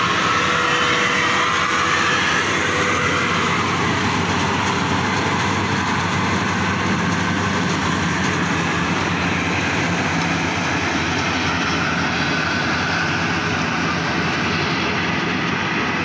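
Bimo 110 combine harvester running under load while harvesting rice: a loud, steady drone of its engine and threshing machinery.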